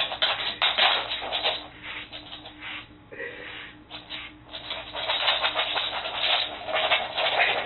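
A grooming brush rubbing quickly through a dog's coat, a rapid run of scratchy strokes that eases briefly around the middle and then grows louder.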